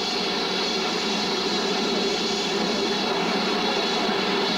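BR Standard 4 tank steam locomotive standing with steam escaping in a steady hiss.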